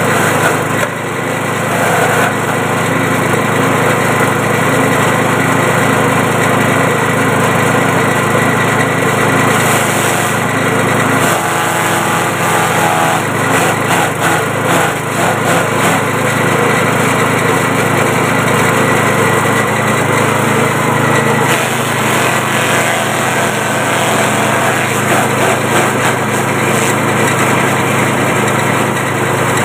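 Forage chopper driven by a small 6.5 hp engine, running steadily under load while green stalks are fed in and cut by its blades. The chopping comes through unevenly over the engine, roughest about halfway through.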